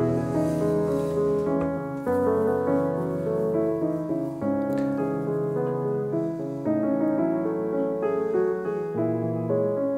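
Background piano music, a steady flow of held notes and chords.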